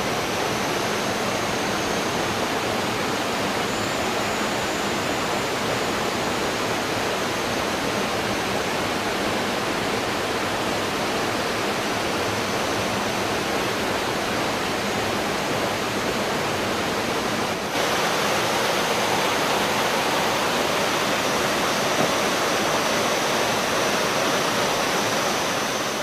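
Waterfall: a steady, loud rush of falling water, stepping up slightly in level about two-thirds of the way through.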